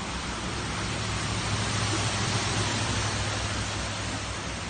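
Steady hiss of heavy rain and floodwater rushing across a street, with a low rumble that swells for a couple of seconds around the middle.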